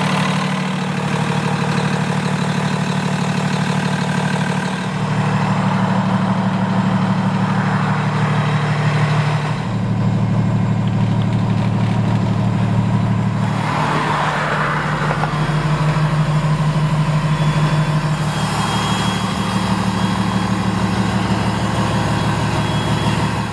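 Freightliner M2 truck's red Cummins diesel engine idling steadily. The tone shifts slightly a few times, and there is a brief noisy swell about 14 seconds in.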